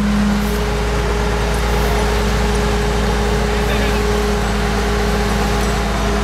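Engine of the yellow crane or excavator hoisting a sandbag bucket, running steadily with a constant low rumble and a steady hum.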